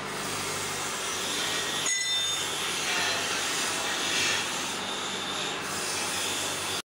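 Steady rasping and scraping of a tool working a cast brass piece, with a brief thin whine about two seconds in; it cuts off suddenly near the end.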